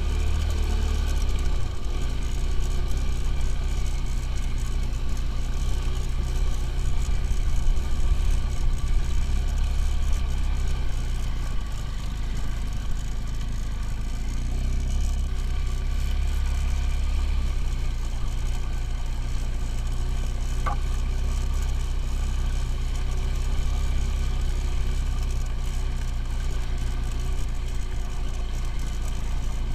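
Motorcycle engine running steadily, its speed shifting a little now and then, with one short sharp tick about two-thirds of the way through.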